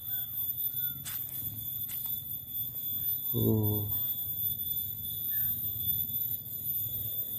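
Steady high-pitched insect chorus, several thin tones held without a break. A short hummed voice sounds about halfway through.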